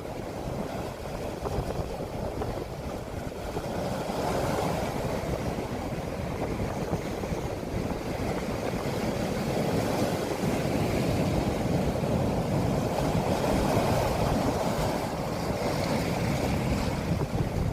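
Sea waves washing in and breaking, the noise swelling and easing every few seconds, with wind on the microphone.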